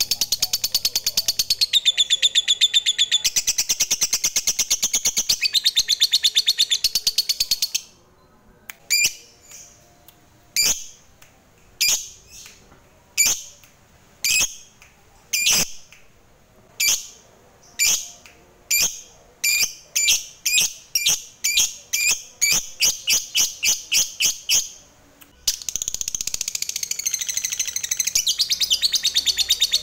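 Lovebird 'ngekek': a long, rapid, high chattering trill that breaks off about eight seconds in. Single sharp chirps follow, about a second apart at first, then coming faster and faster until the rapid chatter starts again near the end.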